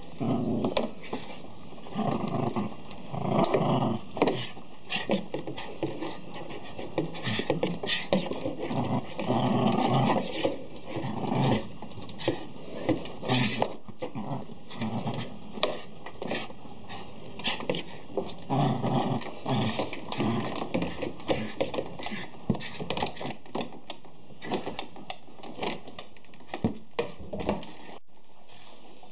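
Small dog growling in irregular rough bursts as it bites and tugs at a push broom, with knocks and scrapes from the broom head on the doormat and floor.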